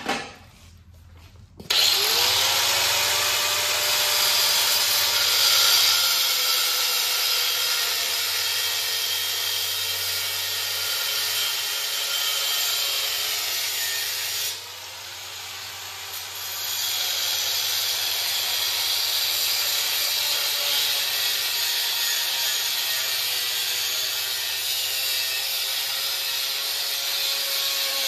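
Handheld power grinder grinding metal: the motor spins up about two seconds in, with a wavering whine under a harsh grinding hiss. About halfway through the grinding drops for a couple of seconds while the motor keeps running, then it bites into the metal again.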